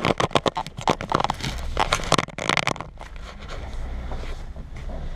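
Rustling, scraping and clicking of a camera being handled and fitted in place, close on the microphone. After about three seconds the handling stops and it settles to a steady low hum.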